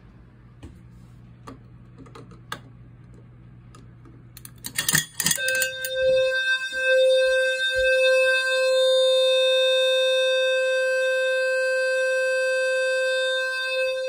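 Fire alarm horn coming on about five seconds in, after some light clicking, and sounding one continuous tone, uneven for the first few seconds and then steady.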